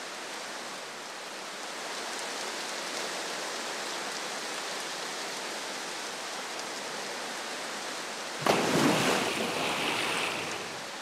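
Steady hiss of rain falling on a river surface. About eight and a half seconds in, sudden loud splashing and churning water as two male crocodiles lunge at each other in a territorial fight.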